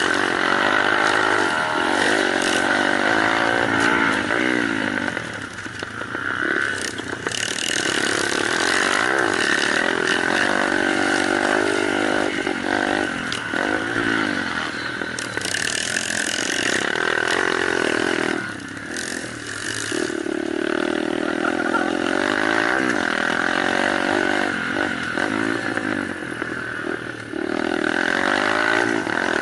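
Small off-road motorcycle engines of a kids' and mini-moto class revving as they ride, the pitch rising and falling again and again, with more than one bike heard at once.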